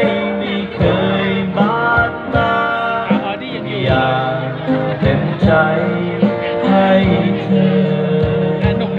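Live acoustic music: a man singing over a strummed acoustic guitar, with percussion struck with drumsticks keeping the beat.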